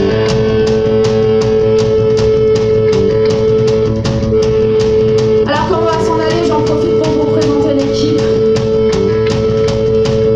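Live rock band playing: electric guitars and bass holding a steady chord over a drum kit beating out a regular rhythm. About halfway through, a higher melodic line comes in, bending up and down in pitch.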